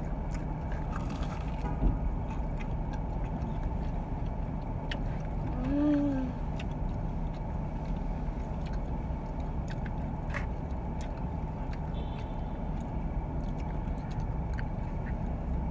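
Steady low hum of a car running, heard from inside its cabin, with a few small clicks and a brief hummed "mm" about six seconds in.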